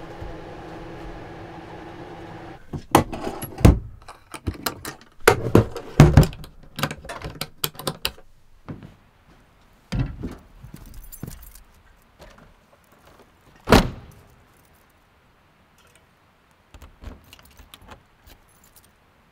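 Keys jangling and a run of knocks and clunks as a Slumber Queen truck camper's door is handled and someone climbs down its rear step, with one loud door thump about fourteen seconds in as the camper door shuts. Light key clicks at the door lock near the end. A steady hum runs for the first three seconds, then stops.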